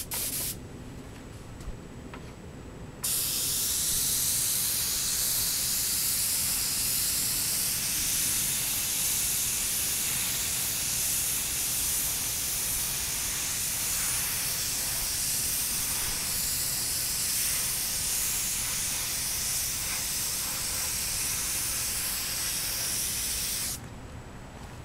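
Iwata airbrush spraying paint: a steady hiss of compressed air that starts about three seconds in and cuts off shortly before the end.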